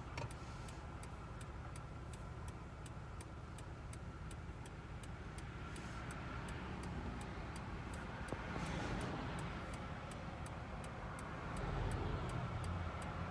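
Car engine idling, heard from inside the cabin as a steady low rumble, with a fast, even ticking of about three ticks a second. The rumble swells twice, around nine and twelve seconds in.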